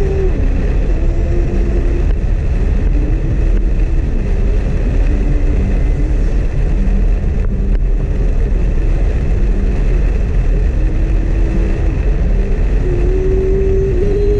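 Heavy rain drumming on a small car while it drives, heard inside the cabin of a Suzuki S-Presso, over steady road rumble. The engine's hum shifts up and down in pitch as the car moves.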